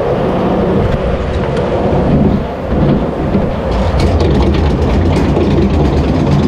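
Water ride boat climbing a chain lift hill: steady mechanical rumble of the lift chain, with a clatter of clicks from about four seconds in.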